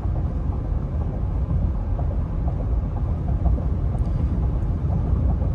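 Steady low rumble of road, tyre and engine noise inside the cab of a 2022 Ford F-150 2.7 EcoBoost pickup cruising at 70 mph.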